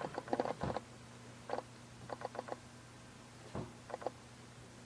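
Footsteps stepping backward: a few scattered light scuffs and taps, over a steady low hum.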